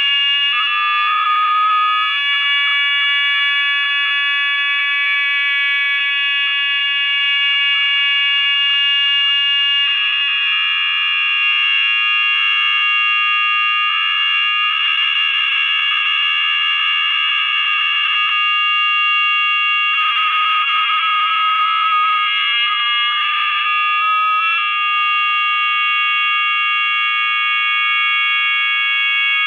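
A loud, shrill electronic howl from audio feedback: many high pitches held together without a break, at times turning rough and flickery.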